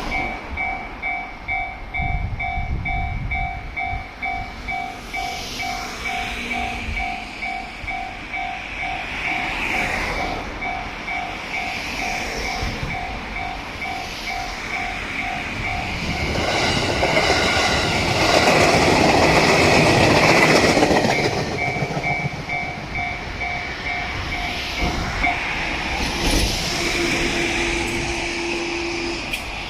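Japanese level-crossing alarm ringing its repeating two-tone 'kan-kan' at about two to three strokes a second. Midway through, a JR Sanin Main Line local train passes over the crossing for about five seconds, its running noise loud enough to drown the alarm. The alarm rings on after the train has gone, stops a few seconds before the end, and a brief steady hum follows.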